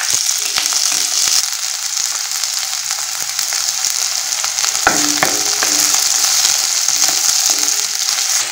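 Sliced onions sizzling steadily in hot oil in a metal kadhai, just after going in. A few knocks about five seconds in, then a wooden spatula stirs them.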